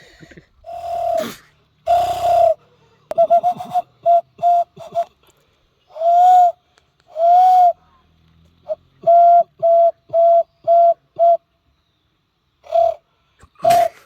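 A person imitating bird calls with low, hollow whistled notes. After a couple of breathy blows comes a quick run of short notes, then two longer swelling notes, then an even series of about two short notes a second, with a few more near the end.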